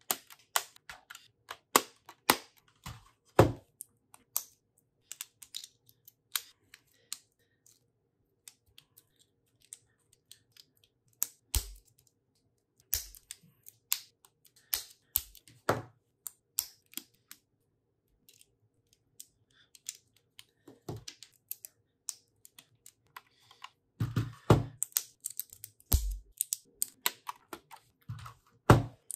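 Plastic Lego bricks clicking and clattering as they are picked from a loose pile, handled and snapped together by hand. Irregular sharp clicks, busiest near the start and in the last few seconds, sparser through the middle.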